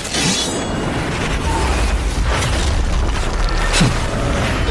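Battle sound effects of an animated energy attack: deep booms and crashing impacts over a low rumble, with background music.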